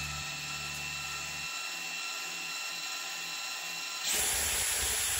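Cordless drill motor running, a steady whine as it spins a screwdriver bit. About four seconds in it gets louder and harsher.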